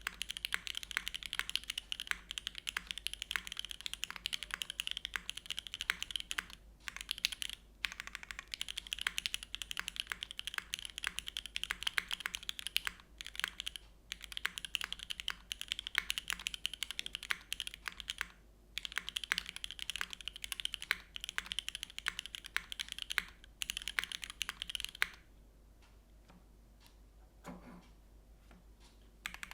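Fast typing on a Geonworks Frog Mini mechanical keyboard with lubed Gateron Everfree Curry switches, an aluminium plate and GMK keycaps: a dense run of crisp keystroke clicks with a few brief gaps. The typing stops for about four seconds near the end, then starts again.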